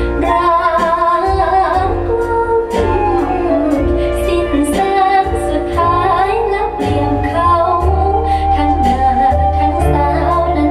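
A woman singing a Thai song over full instrumental backing with a steady bass line.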